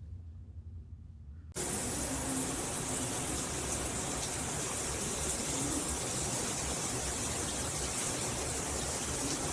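Shower head spraying water, the hiss starting abruptly about a second and a half in and then running steadily.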